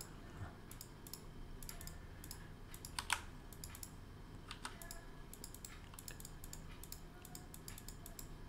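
Faint, irregular clicking and tapping of a computer keyboard and mouse, with one louder click about three seconds in.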